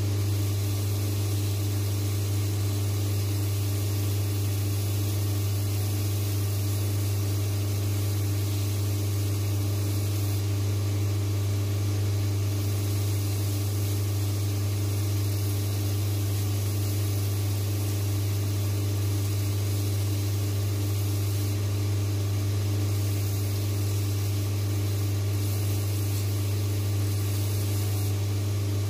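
Shoe finishing machine running steadily with a strong low motor hum, its sanding wheel grinding a wooden block held against it to cut an angle; the grinding hiss swells and eases a few times as the wood is pressed on.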